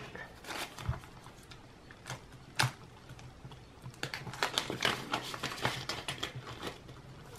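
Paper banknotes rustling and flicking as they are handled and counted, with the crinkle of a clear plastic zip envelope as the cash is slid into it. The rustling comes in a quick flurry from about four seconds in.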